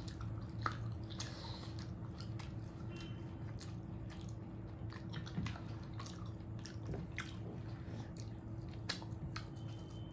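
Close-up chewing and wet, squishy mouth sounds of a person eating rice and mutton curry, with many small irregular clicks.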